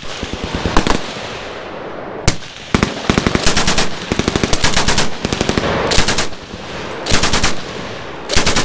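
Browning Automatic Rifle (BAR) firing .30-06 in several short bursts of automatic fire, each a fraction of a second to about a second long, with single shots between some of them.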